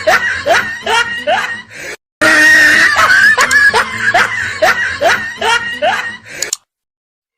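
Laughter sound effect: a quick run of rising, pitched laughs, cut off briefly about two seconds in and then played again in the same pattern, ending abruptly.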